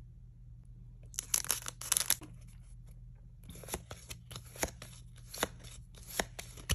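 Foil trading cards being slid off a handheld stack one at a time: a burst of rustling about a second in, then a run of short, sharp card flicks and snaps at irregular gaps.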